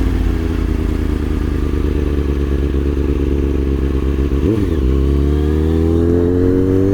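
2003 Kawasaki ZX-6R 636's inline-four sport-bike engine running low and steady, with one quick throttle blip about four and a half seconds in. Then the revs climb steadily until it cuts off at the end.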